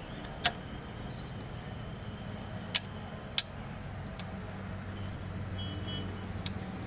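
Three sharp metallic clicks, spaced a few seconds apart, as the gear shift shaft and tools are worked against the Maruti Alto's gearbox housing to centre the shaft. A steady low hum runs underneath.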